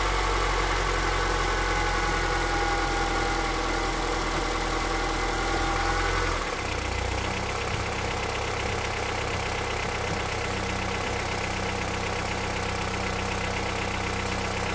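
A 2008 Honda CR-V's 2.4-litre four-cylinder petrol engine idling, heard from the open hood. About six and a half seconds in, the engine note drops and settles lower as Drive is engaged and the engine takes load against the handbrake. Under load it starts a light knocking that the owner likens to an engine running without oil; the knock persists with the drive belt removed, and its cause is unknown.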